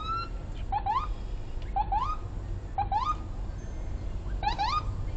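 Vehicle siren on a civilian car sounding in short rising chirps, a quick pair about once a second, over a steady low rumble of road and engine noise.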